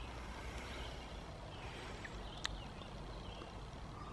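Quiet outdoor ambience: a faint steady hiss with a few soft, scattered chirps and a single sharp click about two and a half seconds in.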